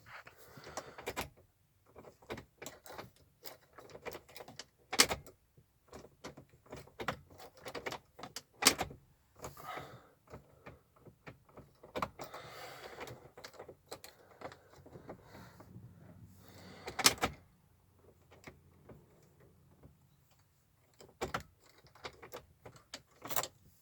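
Hand work on a car's ignition switch area: scattered clicks, knocks and light rattles as parts are fitted back into place. The louder knocks come about five, nine and seventeen seconds in, and twice more near the end.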